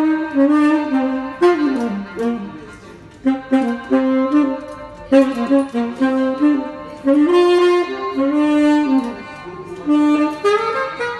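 Saxophone playing a melodic line of single held and moving notes in phrases, with short breaths between phrases.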